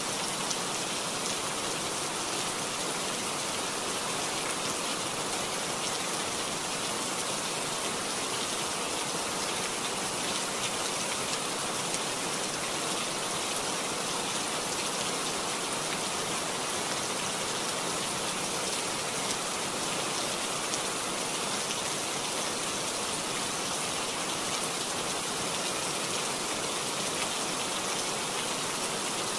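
Heavy rain falling steadily, a dense even hiss without a break.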